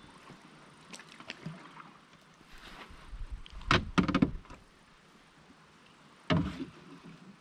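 Canoe paddle being handled in an Old Town canoe: splashing paddle work and hollow knocks of the wooden paddle against the hull. There is a cluster of knocks and splashes a little over three seconds in and one sharp thud a little after six seconds.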